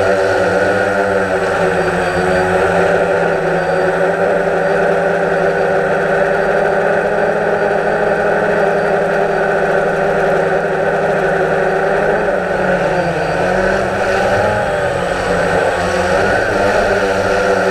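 DJI Phantom quadcopter's four brushless motors and propellers whining steadily, heard close up from the camera mounted on the drone. The pitch dips and wavers briefly about twelve seconds in as the motors change speed.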